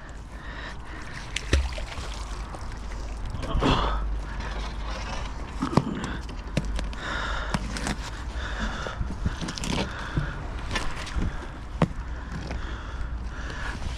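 Scattered sharp knocks and clicks over a steady low rumble, with faint voices now and then.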